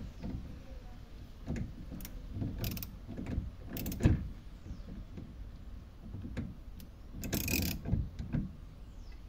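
A homemade tool clicks and knocks against the fuel pump module's retaining ring as it is worked to seat the pump evenly in the tank. Irregular knocks come through most of the time, with a short scraping rasp about three-quarters of the way through.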